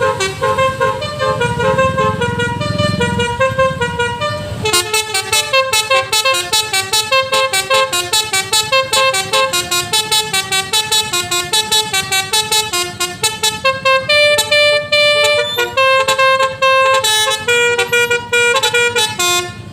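Basuri multi-tone telolet horn with roof-mounted trumpets playing a melody of quickly changing notes, with a low rumble underneath that stops about four and a half seconds in. From there the tune speeds up into a rapid run of short notes.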